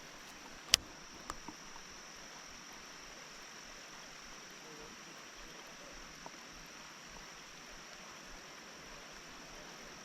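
Faint steady hiss of light rain with a continuous high-pitched insect drone. A sharp click comes just under a second in, followed by two softer ticks.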